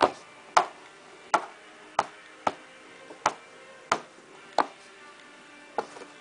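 Baby slapping her hands on a high-chair tray: a run of sharp smacks, about one every two-thirds of a second, nine in all, stopping shortly before the end.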